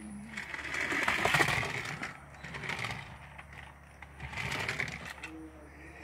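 Small electric motor of a toy remote-control car whirring in two bursts as it drives across wooden deck boards, the longer one starting about half a second in and a shorter one near the end.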